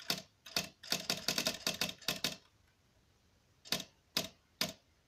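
Smith Corona electric typewriter clacking. Two strokes come first, then a quick run of about eight, a pause of about a second, and then three single strokes about half a second apart.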